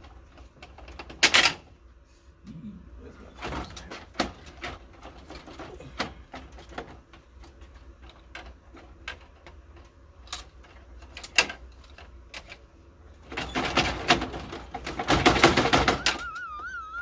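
Plastic clicks, knocks and rattles of an office printer's parts being worked by hand at a stuck cartridge piece that will not come out, with a longer burst of rattling and scraping near the end. A short wavering tone follows at the very end.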